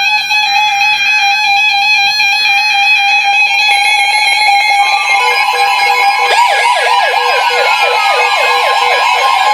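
Weather alert radios sounding their alarms for a severe thunderstorm warning: steady high electronic tones with beeping. About five seconds in a steady alert tone starts, and about a second later a rapid up-and-down siren-like warble joins in.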